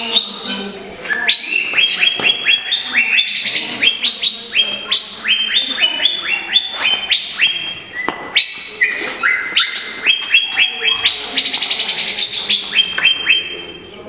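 Chorus of many small aviary birds chirping and twittering together: quick runs of short, high notes, one run after another with hardly a break.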